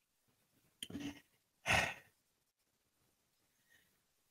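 A woman's faint short sound about a second in, then a brief breathy sigh near two seconds.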